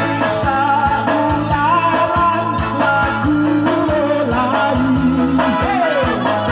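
A man singing through a microphone and PA, backed by an electronic keyboard playing chords over a steady beat.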